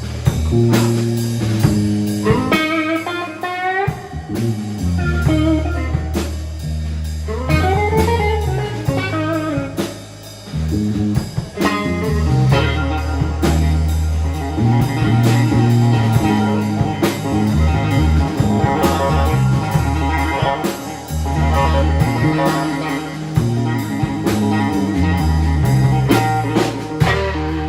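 Live blues-rock trio playing an instrumental passage: electric guitar playing a melodic line with bent, sliding notes over electric bass and a drum kit.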